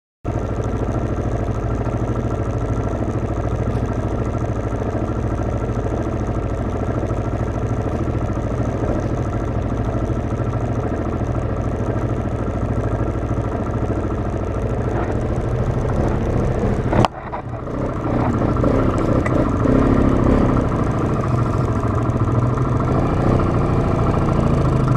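Yamaha Grizzly ATV's single-cylinder four-stroke engine idling steadily. About two-thirds of the way through there is a sudden click and a brief drop, after which the engine sounds louder and rougher, its pitch rising a little near the end.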